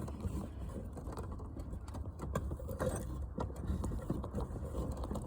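Faint scattered clicks and small handling knocks of parts being worked by hand, over a steady low rumble.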